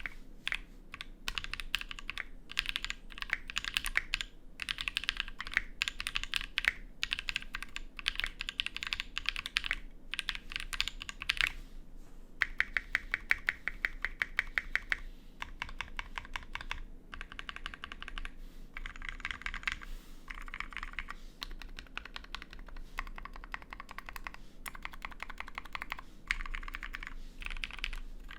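Fast, continuous typing on a Tofu60 mechanical keyboard with lubed and filmed NovelKeys Kailh Cream linear switches on an aluminium plate, with ABS keycaps. Runs of quick keystrokes come in bursts with brief pauses between them.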